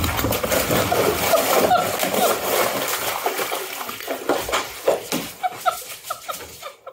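A cat thrashing and scrambling in a bathtub of water, with continuous loud splashing that breaks into separate sloshes and splashes toward the end.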